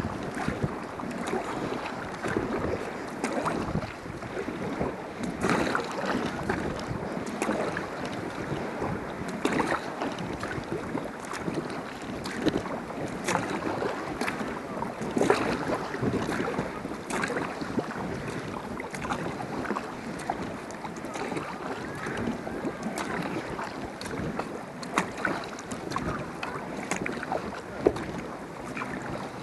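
Kayak on the water: paddle splashes and water sloshing against the hull, with wind buffeting the microphone.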